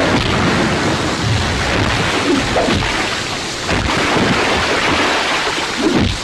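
Heavy rain falling steadily in a film soundtrack, mixed with repeated low rumbling booms and thuds.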